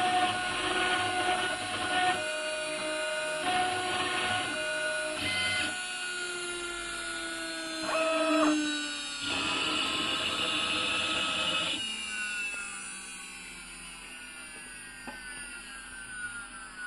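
CNC engraving router cutting small characters into a metal plate: the machine whines in steady tones that change pitch or stop every second or so as the head moves. About twelve seconds in it quietens, leaving whining tones that slowly fall in pitch.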